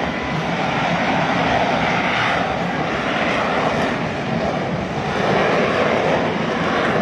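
F-35B fighter's jet engine running, a loud, steady rushing jet noise.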